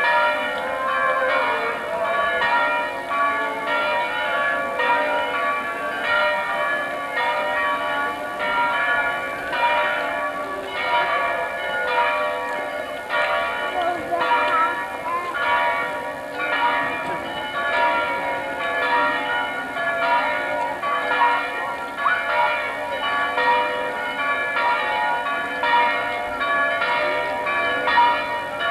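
Church bells pealing continuously, many ringing tones struck over and over in a steady, overlapping rhythm.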